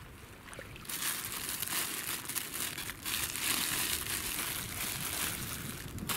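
A plastic food wrapper being crinkled and torn open by hand. It is a dense crackle that starts about a second in and goes on for about five seconds, with a loud crackle near the end.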